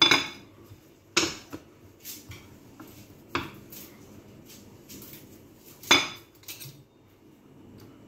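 Cutting utensils, a pizza cutter among them, knocking and clacking against a stone countertop while dough is cut: four sharp knocks, the loudest at the start and about six seconds in, with a few lighter taps between.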